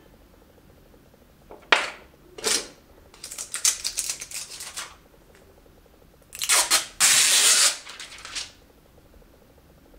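Close handling noise in irregular bursts: rustling and crinkling of earphone cables and clear plastic packaging, with a sharp click a little before two seconds in and the loudest, densest crinkling about seven seconds in.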